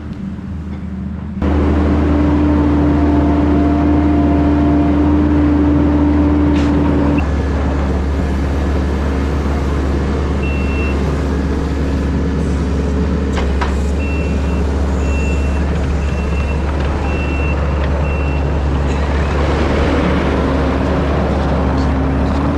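Kubota SVL90-2 compact track loader's diesel engine running steadily, with its backup alarm beeping about once a second for several seconds in the middle as the machine reverses.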